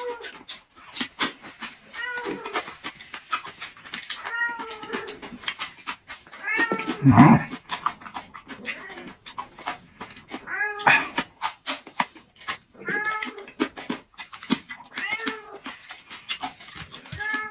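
A cat meowing over and over, a short call about every two seconds with the loudest about seven seconds in, amid many short clicks.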